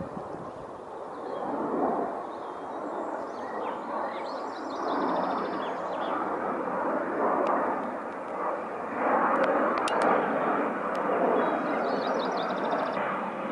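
Jet engine noise from a pair of Eurofighter Typhoons, a rushing rumble that grows steadily louder as the jets approach, with faint bird chirps at times.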